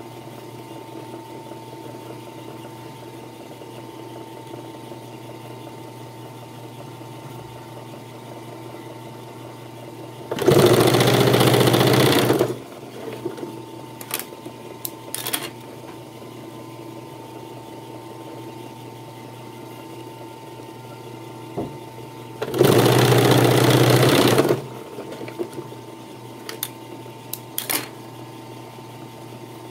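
Puritan three-needle industrial sewing machine: its motor hums steadily, and twice the machine runs and stitches for about two seconds, about ten seconds in and again about twenty-three seconds in. A few light clicks come between the runs.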